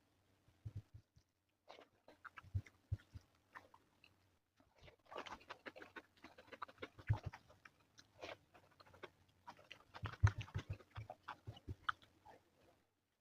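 Close-miked eating: chewing, wet mouth smacks and crunchy bites, scattered at first and then dense and continuous from about five seconds in.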